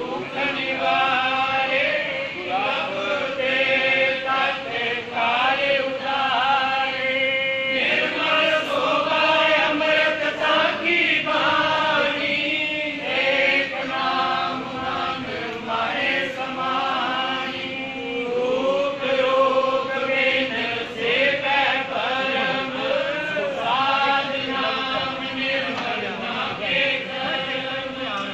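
Many men's voices chanting together, continuous and dense, the pitch rising and falling.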